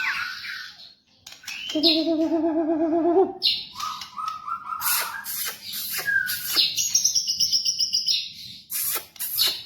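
White-rumped shama (murai batu) singing a varied song: a warbling trill, whistled phrases and a high trill, with sharp clicking notes between them.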